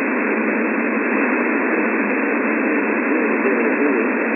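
Steady shortwave static hiss from an SDR receiver in upper-sideband mode, with a thin, narrow sound because the receiver's filter cuts off the lows and highs. Faint wavering tones come and go beneath the hiss, in a pause between words of the HF aeronautical weather broadcast.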